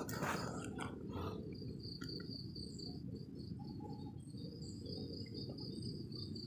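An insect trilling steadily in a high, fast-pulsing note over a low rumble, with a few soft knocks in the first second.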